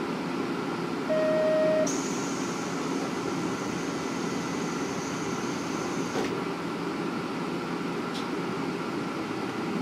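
Idling of a KiHa 47 diesel railcar's replacement Komatsu diesel engine, heard from a seat right above the engine as a steady low hum. A short loud beep comes about a second in. A thin high tone follows from about two seconds in and stops with a click about six seconds in.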